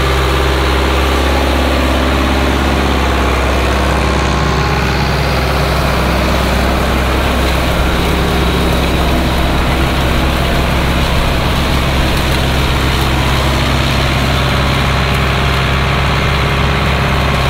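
Tractor engine running steadily at a constant speed, an even low hum with no change in pitch.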